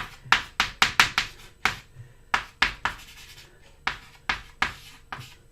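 A writing tool drawing quick strokes on a board: a series of short scratchy strokes, irregularly spaced, about fifteen in all.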